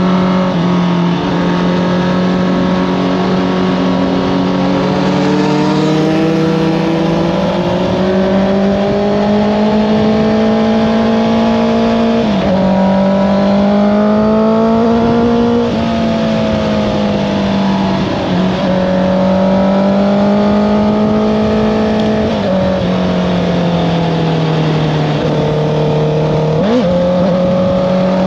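Honda CBR650R inline-four engine through an Akrapovič exhaust, ridden under load: the engine note rises and falls slowly, with quick jumps in pitch at gear changes about four times.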